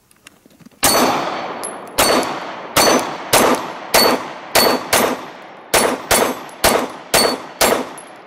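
Glock 19 9mm pistol fired twelve times in rapid succession, the shots coming faster after the first two to about two a second, each shot trailing off in echo.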